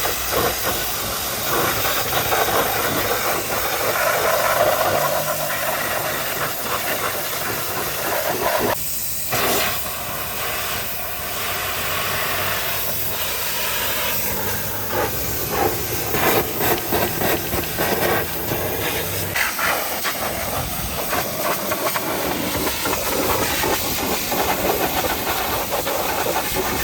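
High-pressure washer jet spraying, a dense hiss that swells and dips, with a low steady hum underneath.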